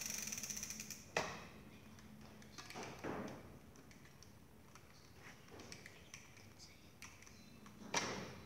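Small metal clicks and taps from a bicycle's front wheel axle and nut being fitted by hand into the fork: a fast rattling ticking in the first second, then single sharp clicks about a second in, at about three seconds and near the end.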